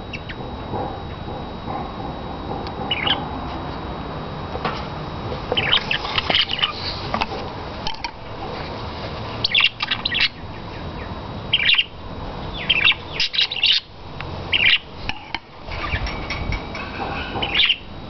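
Pet budgerigars chirping and squawking in a cage: short, sharp, high calls in scattered clusters, coming more often in the second half.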